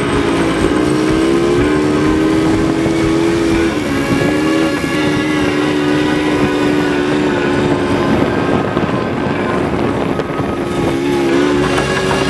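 Quad bike engine running at a steady throttle while riding on sand, its pitch dipping and picking up again about four seconds in and wavering once more near the end.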